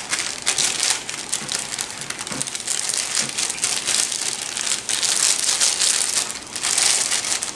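Clear plastic bag crinkling and rustling continuously as it is squeezed and shaken to empty cornbread mix into a bowl.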